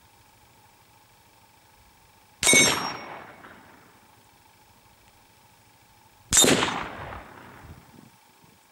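Velmet steel gong targets hit by rifle bullets: two sharp metallic clangs about four seconds apart, each ringing on and dying away over a second or so.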